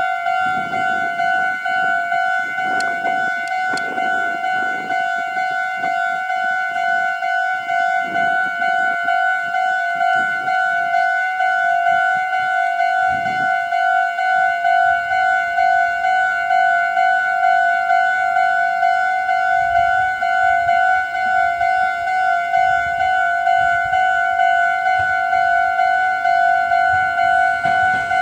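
Japanese railway level-crossing warning alarm ringing without pause: an electronic ding repeating at an even, quick beat. It is the signal that a train is approaching the crossing.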